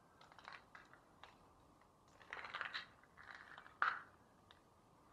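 Faint footsteps crunching over debris on a tiled floor and a door being handled and pushed open, with scattered clicks, a longer crunch in the middle and a sharp click about four seconds in.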